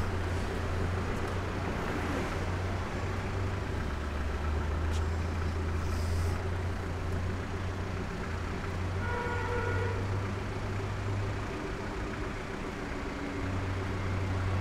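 City street traffic: a steady low rumble of passing vehicles, with a brief pitched tone about nine seconds in.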